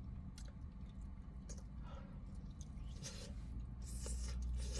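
Faint eating sounds: fried chicken being pulled apart and chewed, with a few short soft crackles and smacks over a low steady hum.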